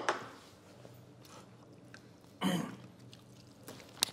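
Quiet eating sounds: fingers working rice and curry on a plate, and chewing. A short, louder noise comes about two and a half seconds in, and a few small clicks come near the end.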